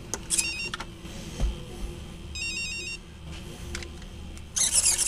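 Electronic power-up tones from the RC crawler's ESC, two short stepped beep sequences, as the battery is connected. Near the end the steering servo whirs in short bursts as it is tested.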